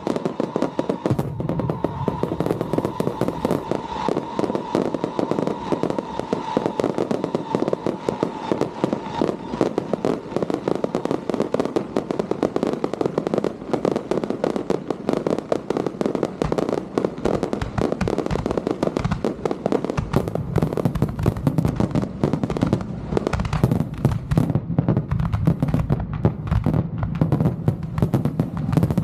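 Fireworks display: a dense, continuous crackling and popping of bursting aerial shells and ground fountains, with heavier booms from about twenty seconds in.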